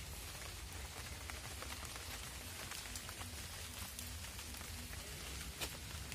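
Light rain falling on leaves and ground: an even hiss dotted with scattered drop ticks, one louder tick near the end.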